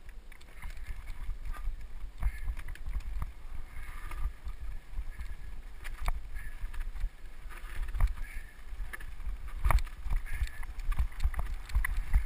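Mountain bike rattling and jolting as it rolls fast down a rough gravel and dirt trail, with wind rumbling on the microphone of a helmet-mounted camera. Frequent sharp knocks come as the bike hits bumps, the loudest nearly ten seconds in.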